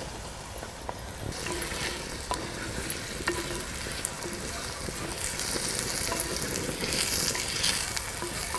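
Chopped tomatoes, just added to a tempering of onions, green chillies and curry leaves, sizzling in hot oil in a clay pot while a spoon stirs them. The sizzle swells about a second in and grows louder again near the end, with a few light taps of the spoon against the pot.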